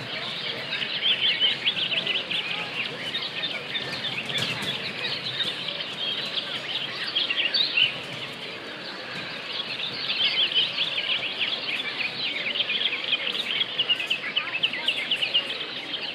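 Crowd cheering, with many high-pitched children's voices shrieking and calling at once. It dips briefly about eight seconds in, then swells again.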